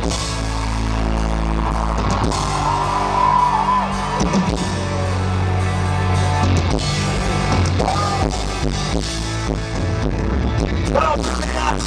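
Live country-rock band playing loud through a concert PA: electric guitars, bass and a drum kit in a steady rock groove, with little or no singing.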